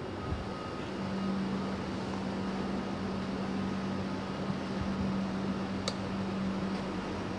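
Steady mechanical hum with a constant low drone and airy noise, growing a little stronger about a second in, with one sharp click about six seconds in.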